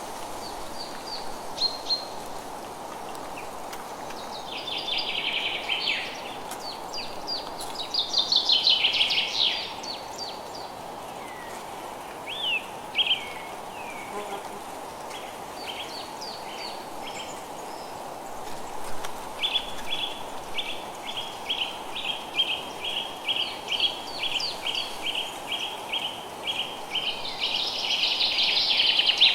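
Steady rain hiss with birds singing over it: chirps and short trills in the first half, then a bird repeating a short call about twice a second through the second half, with a louder burst of song near the end.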